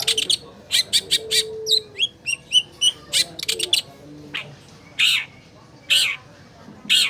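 Long-tailed shrike (cendet) singing: a quick run of sharp chirps and whistled notes, then harsh, rasping calls about once a second.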